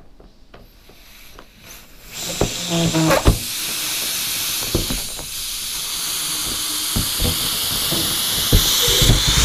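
Air escaping through the open neck of an inflated balloon as it deflates, heard from inside the balloon. A steady hiss starts about two seconds in and grows louder toward the end. A few knocks from hands on the balloon come just after it starts.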